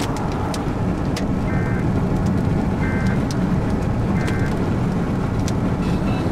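Steady road and engine noise inside a moving car, with scattered sharp ticks of hailstones striking the car. A short electronic beep sounds three times, about a second and a half apart.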